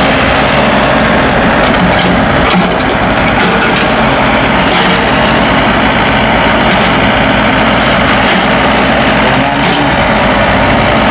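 Kobelco SK045 mini excavator's diesel engine running steadily, with a few short knocks over it.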